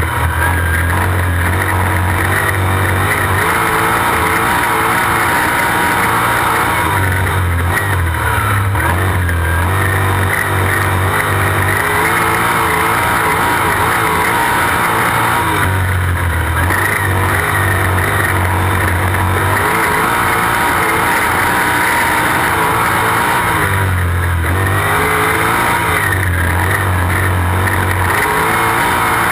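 Sprint car's V8 engine running hard, heard from a camera mounted on the car. The note swells and eases in a regular cycle about every eight seconds as the car laps the dirt oval.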